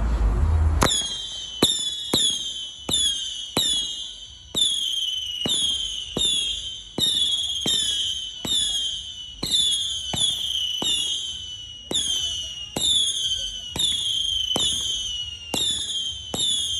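Clobbering Time 259 firework cake firing a rapid string of shots, starting about a second in and going off roughly every half second to second. Each launch is a sharp crack followed by a high whistle that falls in pitch.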